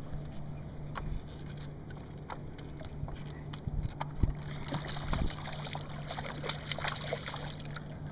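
Small waves lapping and sloshing against a stand-up paddleboard, with scattered light splashes and knocks, over a steady low hum.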